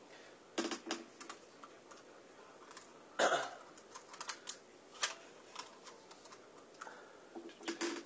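Scattered light clicks and taps, in small clusters, with the loudest knock about three seconds in.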